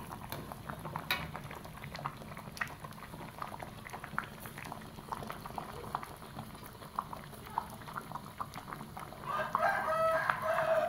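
A pot of thick coconut-milk fish curry simmering, its bubbles popping in soft, irregular clicks. Near the end a chicken calls for about a second and a half, louder than the bubbling.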